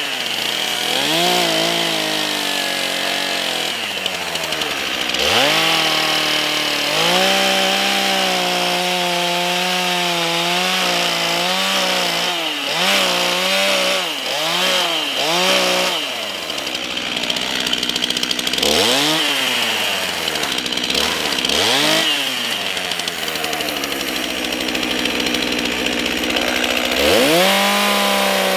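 Stihl two-stroke chainsaw running and cutting into a log, its engine pitch dropping and climbing again and again as it works through the cut.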